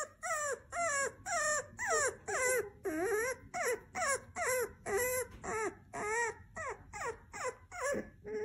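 Bulldog puppy giving a rapid string of short, pitched whining cries, about two to three a second, each wavering in pitch.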